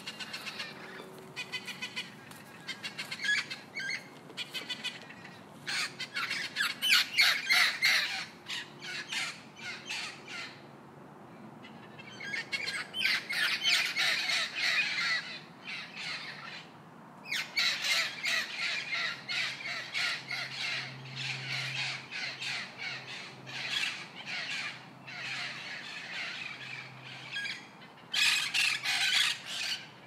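White cockatoo giving harsh, raspy squawks in rapid runs, in several bouts separated by short pauses.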